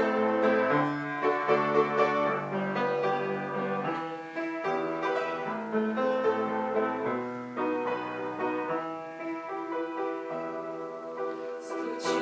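Piano playing the instrumental introduction to a song, a melody over held chords with no voice yet.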